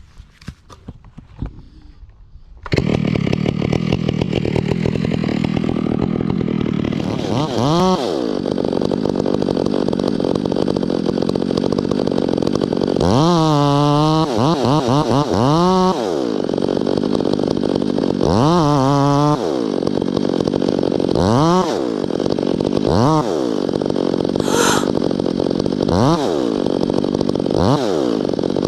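Stihl chainsaw running hard, coming in suddenly about three seconds in and then revving up and down again and again.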